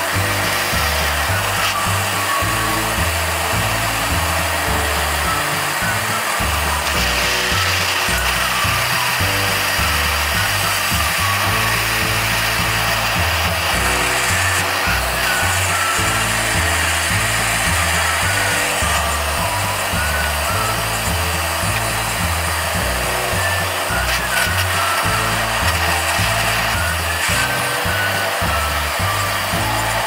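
Gas torch flame hissing steadily as it heats a steel padlock, under upbeat background music with a bouncy, repeating bass line.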